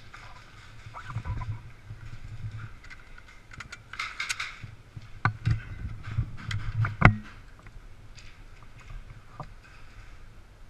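Handling of an airsoft rifle and magazine with the player's gear: scattered clicks, knocks and rattles, the sharpest click about seven seconds in.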